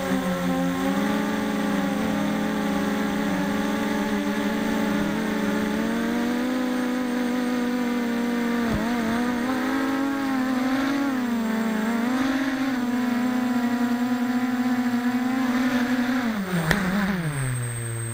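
Emax 2204 2300kv brushless motors of a BPQ270 quadcopter spinning HQ6045 props, heard through its onboard camera: a steady buzzing whine whose pitch rises and falls with throttle. Near the end the pitch drops steeply and there is a single sharp knock as the quad comes down and stops.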